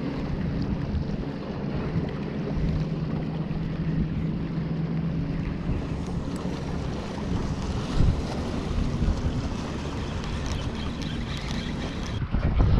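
Wind buffeting the microphone, over waves washing against the rocks of a breakwall; a few knocks come near the end.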